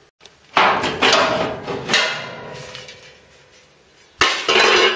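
Sheet-steel repair panels knocking and clattering as they are worked out of the wheel tub. A run of loud metallic knocks with a ringing tail starts about half a second in. Another loud burst comes just after four seconds.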